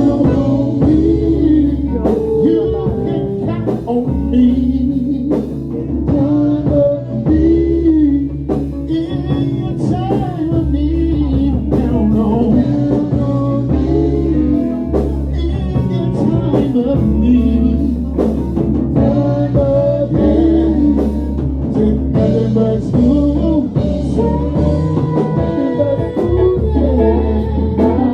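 Live band playing a bluesy gospel number: a guitar lead over bass and drums.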